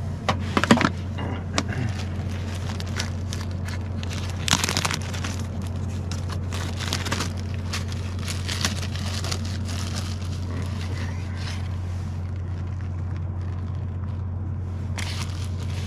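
Food wrapping crinkling and rustling in short, irregular crackles while burritos are put together, over a steady low hum.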